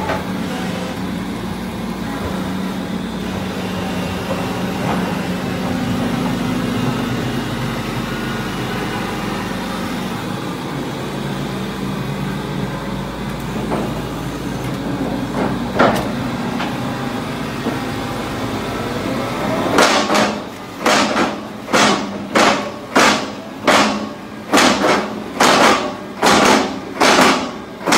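Engine of a mini bored-pile drilling rig running steadily. Near the end comes a rapid run of about a dozen loud clanks, roughly one and a half a second.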